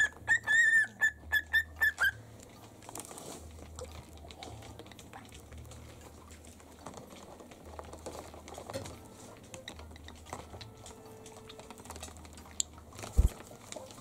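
Small pet parrot whistling a quick run of clear, high notes, one longer note followed by about seven short ones, over the first two seconds. After that only faint scattered taps, like claws on a hard marble floor, and a single dull thump near the end.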